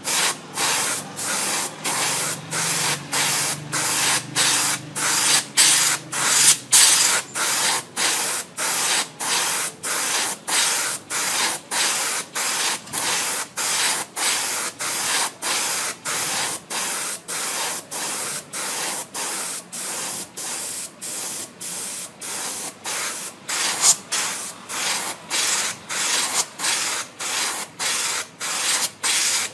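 Airbrush spraying air from a 3-litre bottle air tank at 60 psi, with the compressor switched off, triggered in short even bursts of hiss about one and a half times a second, as in painting.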